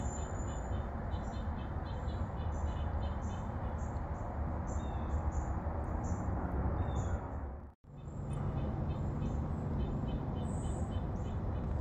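Outdoor background of a steady low rumble, with a small bird chirping in quick repeated runs above it. The sound cuts out for a moment about eight seconds in, then carries on the same.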